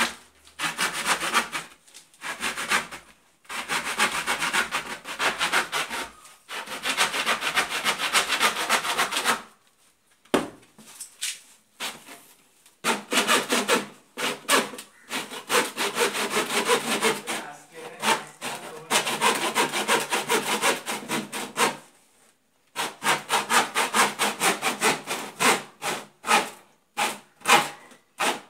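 Hand saw cutting through the edge of a round tank bottom: quick back-and-forth strokes in spells of a few seconds, broken by short pauses, then slower, separate strokes over the last few seconds.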